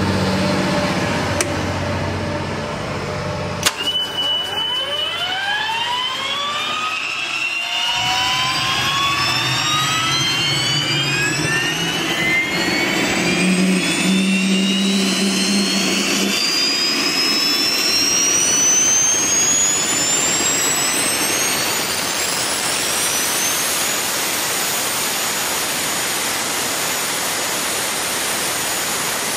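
Garrett GTCP85 auxiliary power unit, a small gas turbine, starting up. A low hum is followed by a click about four seconds in, then whines climb steadily in pitch for about twenty seconds as the turbine spools up. They level off as it reaches 100% speed and runs steadily.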